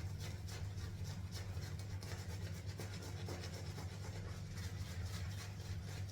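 Dense badger-hair shaving brush scrubbing mint shaving-soap lather onto the face: quick wet rubbing strokes, several a second.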